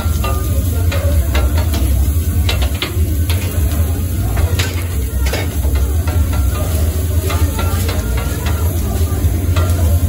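Chef's knife tapping and scraping on a flat steel griddle as diced meat is chopped and pushed around, irregular metallic clicks several times a second over the sizzle of the meat frying and a steady low hum.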